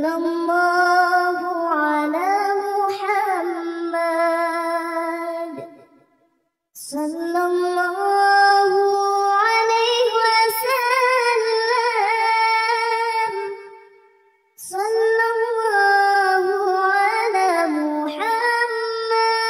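High-pitched solo voice singing an unaccompanied shalawat melody in three long, drawn-out phrases of held and ornamented notes, with brief silences between them.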